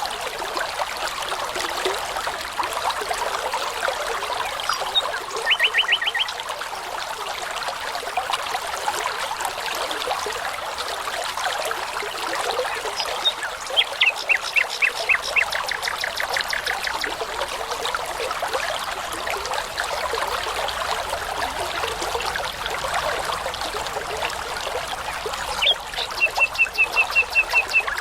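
A brook running steadily, with a nightingale singing three short phrases, each a fast series of repeated notes: near the start, in the middle and near the end.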